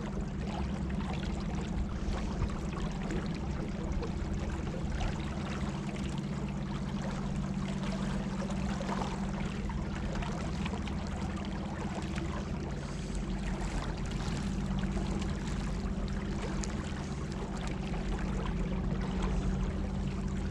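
Water running and trickling along the hull of a small rowboat under way, over a steady low hum from its electric trolling motor.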